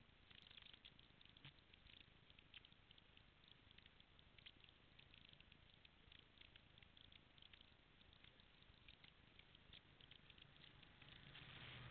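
Near silence outdoors with faint scattered ticks. Near the end the faint, steady hum of an approaching off-road vehicle's engine fades in.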